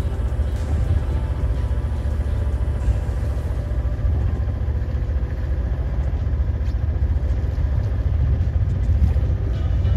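A yacht's engine running steadily while motoring, a constant low drone with no change in speed.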